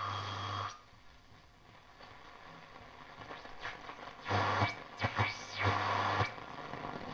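A Telefunken Operette 8 valve radio's loudspeaker gives out hiss and static with a low hum as the tuning dial is turned, and no station comes in. It comes in two stretches: one near the start and one from about four to six seconds in. These are the expected noises of a working receiver with nothing to receive.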